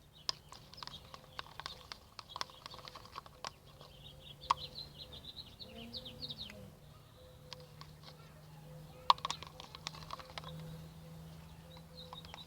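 Small birds chirping in short high calls, in clusters, over a steady low hum, with scattered sharp clicks throughout.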